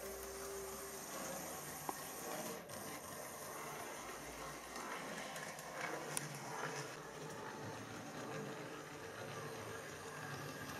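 Hornby Rocket model locomotive running on OO gauge track: the faint, steady whirr of its small electric motor and wheels on the rails, with a couple of light clicks.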